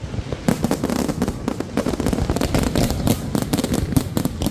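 Fireworks exploding in a dense, continuous barrage of bangs and crackles.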